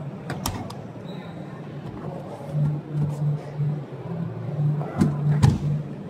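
Sharp clicks and knocks from hands handling a fridge-freezer's door and freezer drawer, two of them close together about five seconds in, over a steady low hum that pulses on and off.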